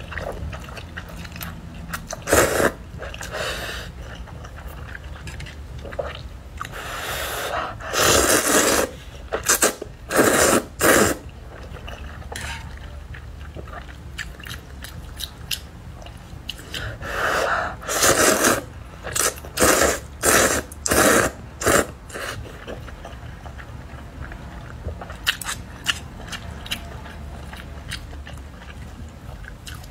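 Close-miked slurping of hot and sour glass noodles, in repeated loud bursts of about a second that bunch together twice, with quieter chewing and mouth sounds between them.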